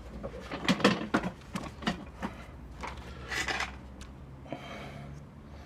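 Small metal band saw guide parts being handled on the bench: a string of short clinks and knocks, then a brief scrape.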